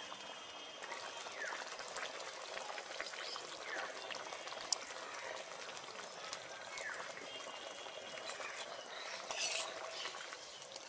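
Boal fish curry boiling in an iron karahi: a steady fine bubbling and spitting. There is a sharp clink about halfway, and a ladle stirs through the pot near the end.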